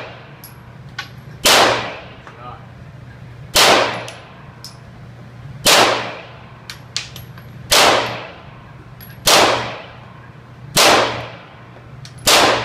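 Semi-automatic pistol fired in single shots, seven of them about every one and a half to two seconds, each ringing out in the echo of an indoor range.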